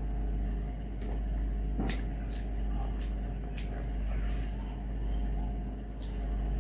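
Eating sounds: a handful of sharp mouth clicks and smacks while rice is mixed by hand on a steel plate, over a steady low hum.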